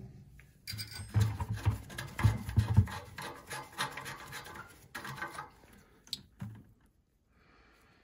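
Gloved hands working the cap and spout of a boiler drain valve over a plastic bucket: scratching and rubbing with light knocks, dying away after about six seconds.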